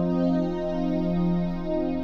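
Roland VR-09 stage keyboard playing its piano-with-strings layered tone: a held chord sustaining, with no new note struck.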